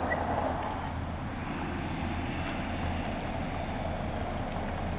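Gas drilling rig machinery running steadily, heard as an even low drone under outdoor rumble.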